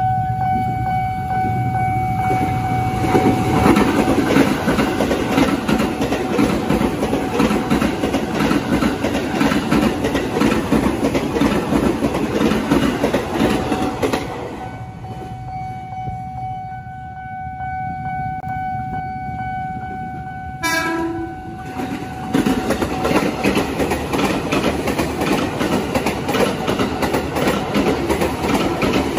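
KRL Commuter Line electric trains at a level crossing: heavy rail rumble and wheel clatter, with the crossing's warning bell ringing a steady tone. Past the middle comes a short horn blast, then a JR 205-series electric train runs past with clattering wheels.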